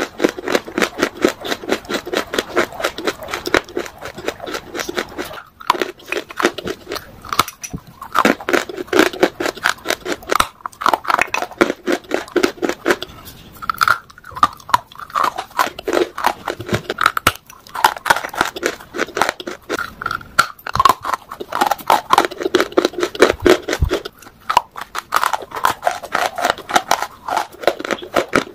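Close-miked crunching and chewing of hard, dry grey clay lumps, a dense run of crisp crunches broken by a few brief pauses.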